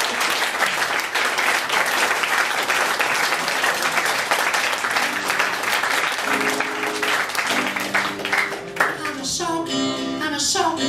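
Audience applauding, with a guitar starting to play about halfway through and a high voice singing over it near the end.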